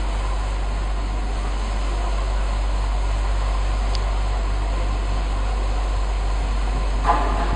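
Steady low hum under an even hiss of background noise in a large indoor hall, with no distinct events standing out.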